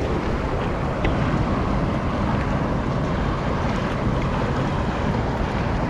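A high, fast river rushing steadily.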